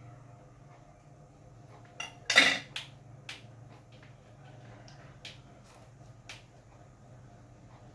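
A loud sharp clatter of hard objects knocked or set down, ringing briefly, followed by a few lighter clicks, over a steady low hum.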